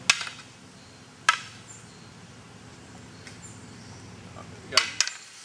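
Toy lightsabers clacking against each other in a mock duel: a few sharp single hits, then two quick hits close together near the end, over a low steady hum that cuts off suddenly about five seconds in.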